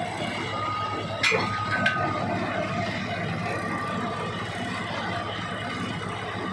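Pile-rig winch machine's engine running steadily, with two sharp knocks less than a second apart a little over a second in.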